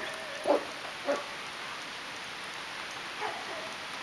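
Puppy giving short yips: two sharp ones about half a second apart near the start, then a fainter one about three seconds in.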